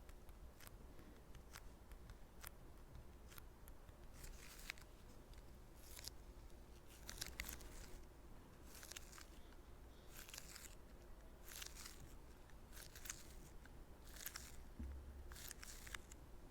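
Quiet close-microphone ASMR trigger sounds: faint sharp clicks at first, then short crisp crackling rustles repeating about once a second.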